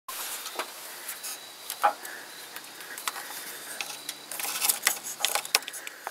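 Irregular light clicks and rustling of handling, with a quicker run of clicks a little past the middle.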